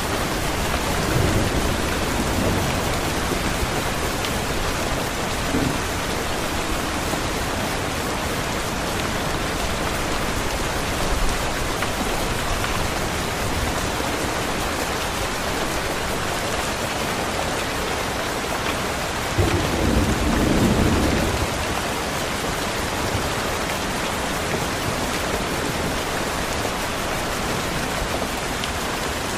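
Steady heavy rain, an even hiss, with low rumbles of thunder: a faint one a second or two in and a louder one lasting about two seconds roughly two-thirds of the way through.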